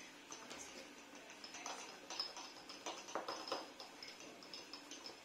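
Felt-tip markers stirring fine salt in small jars: faint, irregular ticking and scraping of the pen tips against the jars and grains as the ink is worked into the salt.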